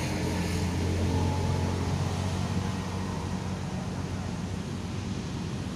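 Low, steady engine hum of a motor vehicle, louder over the first couple of seconds and then easing off, over constant outdoor traffic noise.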